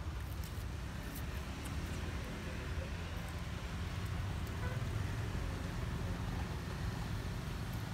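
Steady low rumble of outdoor background noise, with a few faint ticks in the first few seconds.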